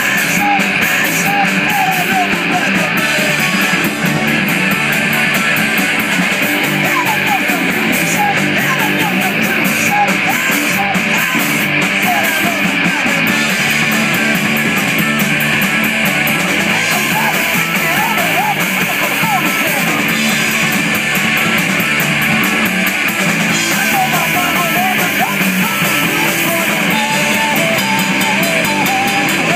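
Live punk rock band playing loud: distorted electric guitars, electric bass and drum kit with crashing cymbals.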